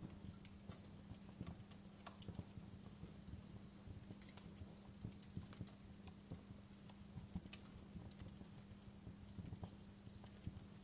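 Wood fire crackling in a fireplace: irregular sharp pops and snaps of uneven loudness, over a steady low hum.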